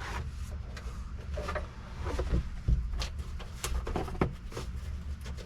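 Scattered light knocks and clicks of hand work on the pickup's dashboard, over a steady low hum.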